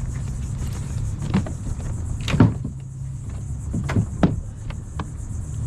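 A handful of short, sharp clicks and knocks, the loudest about two and a half seconds in and a quick cluster near four seconds, over a steady low rumble.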